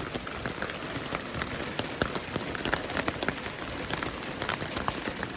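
Heavy rain falling, a steady hiss dotted with many sharp close-by drop impacts.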